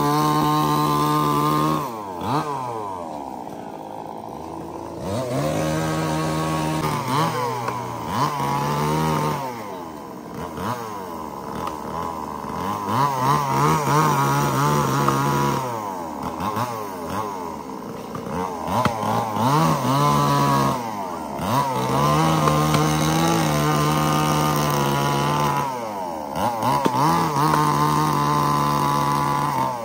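Chainsaw cutting logs: the engine revs up and holds high under load for a few seconds at a time, then drops back to idle before revving up again for the next cut.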